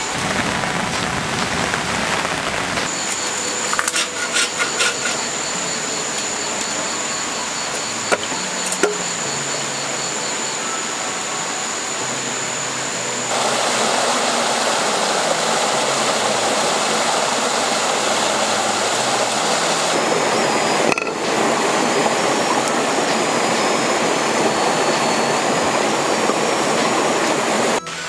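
Water running steadily. After a cut about halfway through it turns to a louder, fuller rush of a small stream spilling over rocks. In the first half a thin, steady high-pitched tone sits above it.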